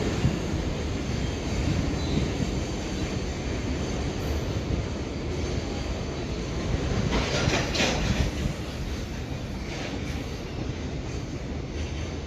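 JR 719 series standard-gauge electric train running on the rails: a steady low rumble of wheels on track, with a brief high-pitched squeal about seven seconds in.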